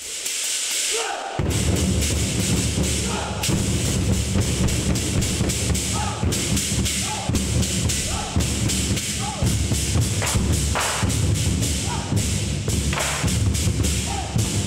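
Several large lion dance drums beaten together with wooden sticks in a fast, driving rhythm of heavy thumps, with sharp higher strikes over the top. The heavy drumming comes in about a second and a half in.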